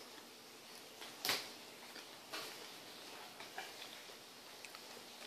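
Faint handling noises from laptop screen parts and small screws: a sharp knock about a second in, a softer knock a little after two seconds, then a few light ticks.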